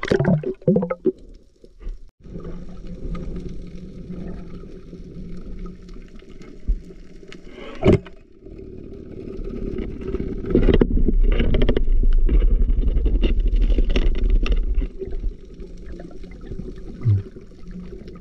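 Muffled underwater noise with a steady low hum, a sharp knock about 8 seconds in, and heavy low rumbling from about 10 to 15 seconds, as the speared fish is handled on the spear shaft.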